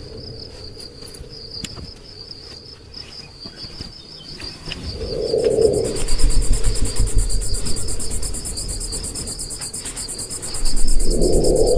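Crickets chirping in a fast, steady trill, with a second, higher insect trill joining about halfway in. A low rumble also comes in about halfway, and two short low sounds stand out, one around the middle and one near the end.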